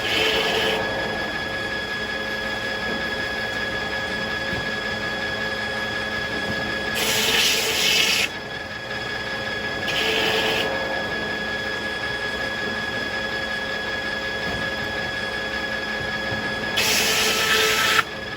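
Circular sawmill running, its blade and drive giving a steady drone with several fixed tones. Four times it grows louder and hissier for about a second, with the last two of these about ten seconds apart.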